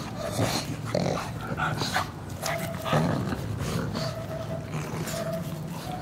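Pugs close to the microphone making a string of short snuffling noises as they nose around.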